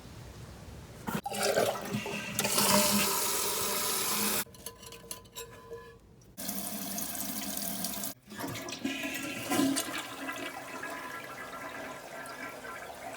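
Toilet flushing: water rushing through the bowl, with sudden breaks about four and a half and eight seconds in before the rush carries on.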